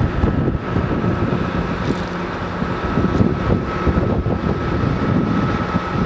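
Loud low rumble with wind buffeting the microphone, over a steady mechanical hum.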